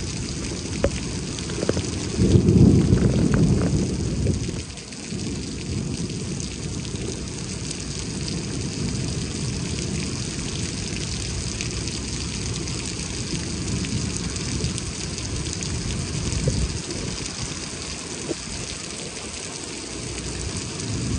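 Heavy rain pouring steadily in a thunderstorm. A low rumble of thunder swells about two seconds in and dies away two seconds later, and more thunder starts to build at the very end.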